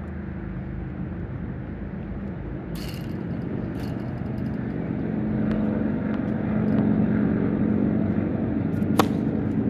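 A single sharp crack of a tennis racket striking the ball on a serve, near the end. Underneath runs a low, steady engine drone like passing traffic, which grows louder toward the middle.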